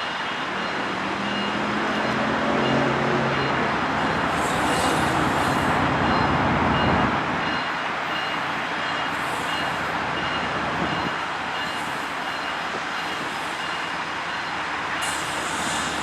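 Steady vehicle noise that builds for about seven seconds and then drops off abruptly.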